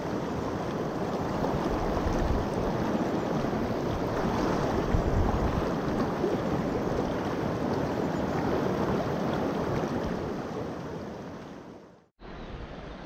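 Shallow, stony river riffle flowing past close by: a steady rushing of water that fades out and drops away about twelve seconds in, then returns quieter.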